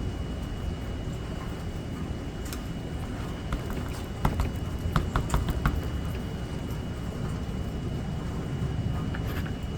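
Steady rainfall with a low rumble, and scattered sharp taps and drips, most of them clustered in the middle and again near the end. A faint steady high tone sits underneath.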